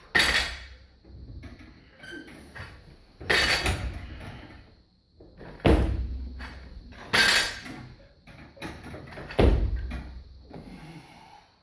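Loaded steel barbell and plates knocking and rattling, with lifting shoes slapping the platform, as a clean is caught on the shoulders and held. Five sharp knocks come a few seconds apart, each with a short ringing tail, and there is softer shuffling between them.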